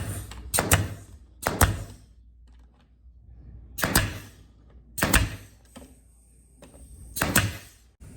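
A series of sharp knocks as door trim molding is fastened in place. There are about six strikes, some in quick pairs, with a second or more between them.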